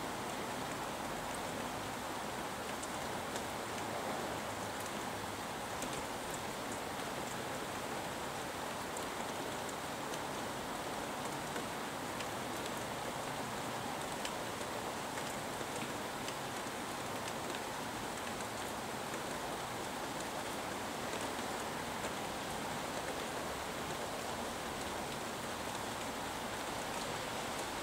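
Steady rain falling: an even hiss, with scattered sharper ticks of single drops hitting nearby surfaces.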